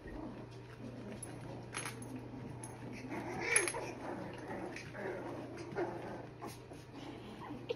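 Three-and-a-half-week-old cockapoo puppies whimpering and squeaking softly as they crawl and play, with one louder cry a little past halfway.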